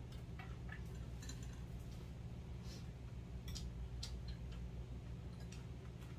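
Mealtime sounds: chopsticks and spoons clicking against metal bowls and plates in irregular light taps, with quiet chewing, over a steady low hum.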